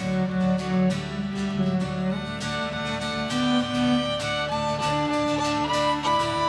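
Background music: a fiddle playing a melody over plucked guitar, in a country or bluegrass style.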